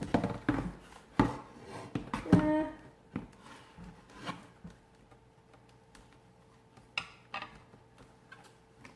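A hand feeling an antler inside a box: irregular rubbing and scraping with scattered knocks of the hard antler against the box, busiest in the first three seconds, then a few sharp knocks about seven seconds in.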